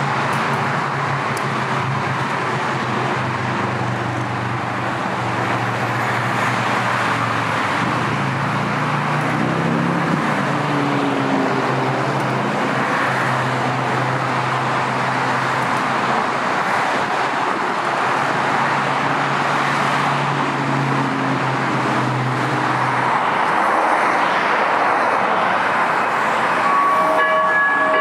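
Steady roar of heavy freeway traffic, with a low engine hum over it that fades out about three quarters of the way through. Near the end a horn starts to sound.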